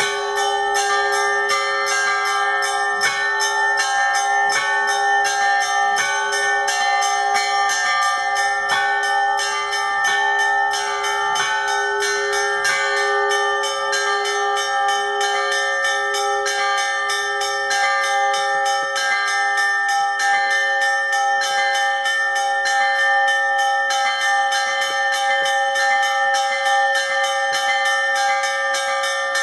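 Russian Orthodox church bells rung together in a festive peal. Small bells are struck several times a second over the long, sustained tones of the larger bells, and the ringing keeps up without a break.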